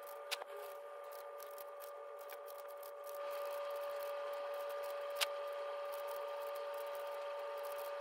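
Plastic YJ MGC 5x5 speedcube being turned by hand, its layers giving a rapid run of light clicks with a couple of sharper snaps. A steady high hum runs underneath and gets a little louder about three seconds in.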